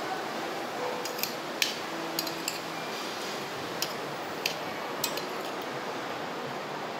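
A metal fork clicking and scraping against a plate in a series of short, light clicks, mostly in the first five seconds, over a steady background hiss.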